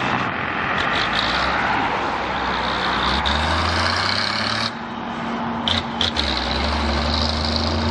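Motor vehicle engine running close by with a steady low hum over a hiss of road and wind noise. The sound breaks off briefly about halfway through, and two short clicks follow soon after.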